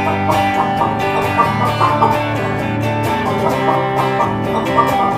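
Instrumental country-style music: a hollow-body electric guitar picked quickly over a steady bass line.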